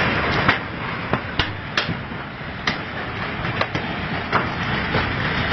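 Building shaking in an earthquake: a steady rough noise with irregular sharp knocks and clatters, about eight of them, as the corrugated metal sheeting rattles.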